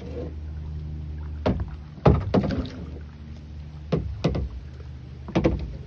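Kayak paddling: the paddle knocks against the plastic kayak hull and dips in the water, giving sharp knocks mostly in pairs every second or two over a steady low hum.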